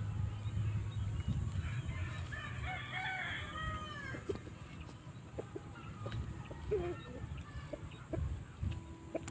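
A rooster crows once, a drawn-out call about two seconds in that lasts roughly two seconds, heard over a steady low rumble. A few short, faint clucks or pecks follow.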